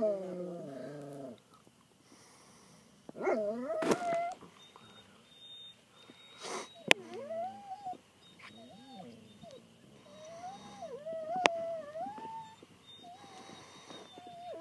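A Doberman whining in repeated high, wavering cries, each bending up and down in pitch. There are two sharp clicks partway through.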